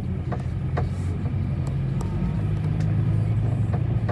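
City bus engine running with a steady low drone, heard from inside the passenger cabin as the bus moves, with a few light clicks and rattles over it.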